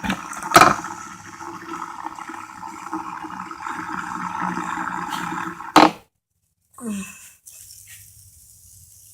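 Fidget spinner spinning at high speed: a steady whirring hiss that ends with a sharp knock about six seconds in, followed by near quiet.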